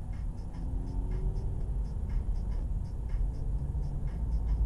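Car engine and road noise heard from inside the cabin as the car accelerates, the engine note rising slowly over a steady low rumble, with faint regular ticking.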